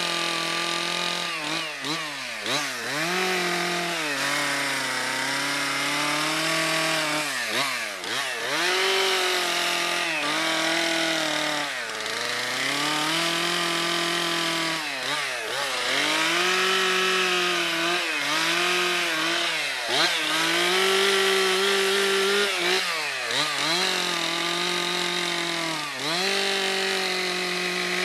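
Stihl two-stroke chainsaw carving into a wooden log, its engine revving up and dropping back every few seconds as the throttle is worked through short cuts.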